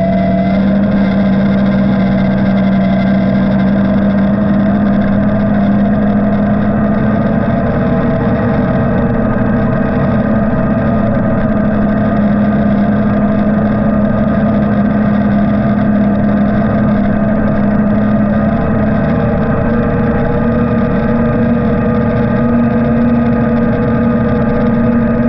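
Engine of a vehicle driving steadily along a snowy trail, holding an even note that edges slightly higher in the last few seconds.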